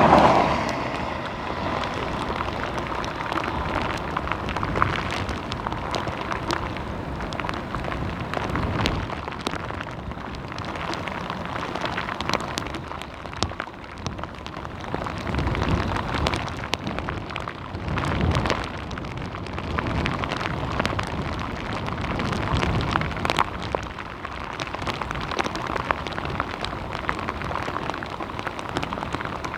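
Heavy rain falling, many separate drops ticking over a steady wash of noise.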